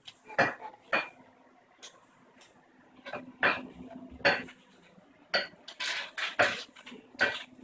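About a dozen irregular sharp knocks and clinks of hard objects being handled, over a faint steady low hum.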